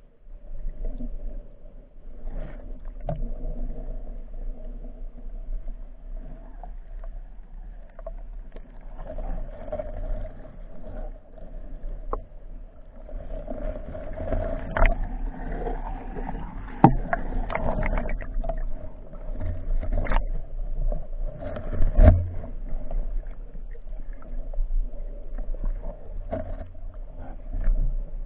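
Muffled water sounds heard through an underwater camera housing: a steady low rumble with sloshing and gurgling, broken by scattered sharp knocks and clicks. The loudest knock comes late on.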